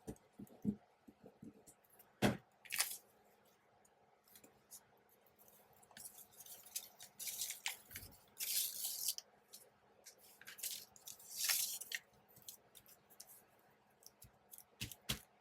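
Glue being rubbed onto paper strips and the paper handled: short scraping swipes and rustles, with small taps and clicks in between.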